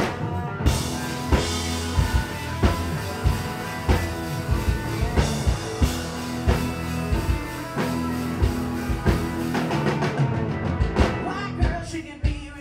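Rock band playing with a drum kit and electric guitars at a steady beat. The full band sound drops back near the end.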